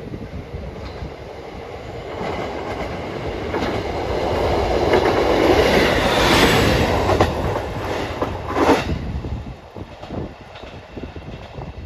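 Diesel railcar train running through the station without stopping: its engine and wheel noise build to a peak about halfway through, with wheels clacking over rail joints, then fade as it moves away.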